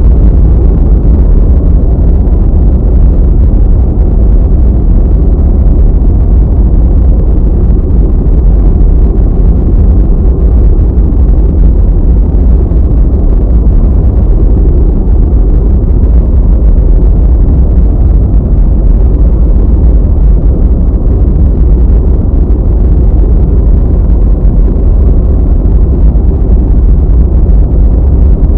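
Loud, steady deep rumble, a continuous noise with its weight in the bass, that does not change or pause.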